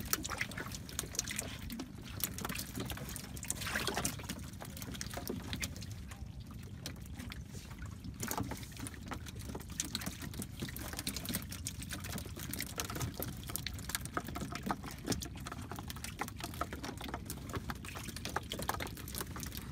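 Small live fish flapping and splashing in the shallow water of a boat's fish compartments, with water trickling and sloshing and many small irregular taps and splashes over a steady low rumble.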